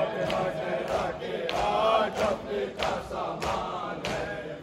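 Congregation doing matam, open palms striking chests together in a steady beat of roughly one and a half strikes a second, with mourners' voices chanting softly behind.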